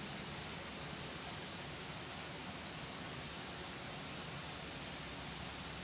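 Steady background hiss, even and unchanging, with no distinct sound standing out.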